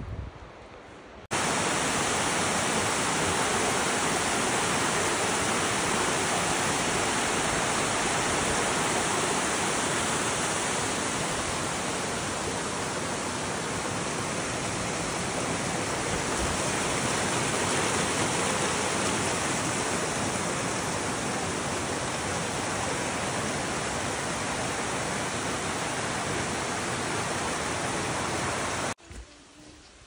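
Steady, even rush of a waterfall, starting abruptly about a second in and cutting off abruptly near the end.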